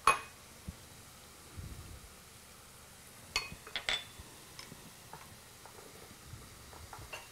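Quiet kitchen handling: a dull knock near two seconds in, then a few clinks of a spoon against glass bowls between three and four seconds in, with lighter ticks after.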